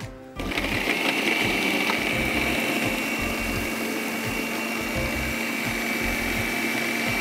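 Electric food processor running steadily, mincing chicken sausages and parsley, with a constant high whine over the motor; it starts about half a second in.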